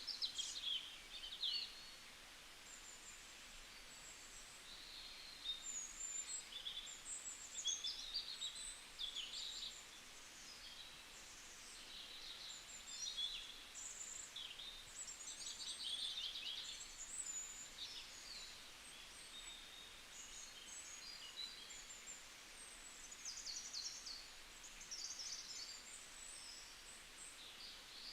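Several small birds chirping and trilling, short high calls coming thick and fast, over a faint steady background hiss.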